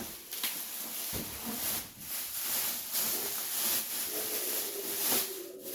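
Rustling and crinkling of packaging material as an opened cardboard box is unpacked by hand, with a low knock about a second in.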